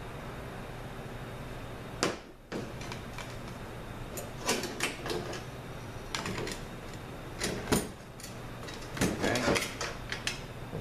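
Steel and friction clutch plates from a 5L40E transmission clinking against each other and against the steel clutch drum as the clutch pack is handled and stacked. The light metallic clicks and clatters come at uneven intervals, starting about two seconds in.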